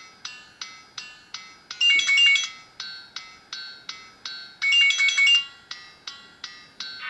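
A Samsung SCH-A610 MIDI ringtone played by the Alcatel 2053D phone's basic MIDI synthesizer: a thin, high melody of short, evenly spaced notes about three a second. Denser clusters of notes come about two seconds and five seconds in.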